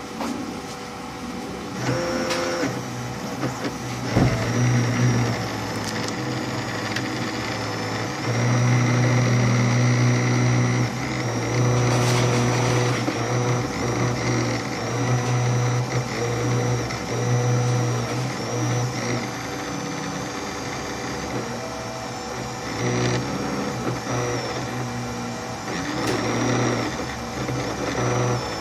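CNC machine's stepper motors driving the axes under the controller: a whining hum that shifts pitch and stops and starts with each move, with a few sharp clicks.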